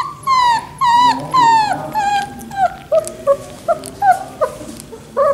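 Three-week-old puppy whimpering: a run of high whines that each slide down in pitch, the first few long, then shorter, quicker squeaks.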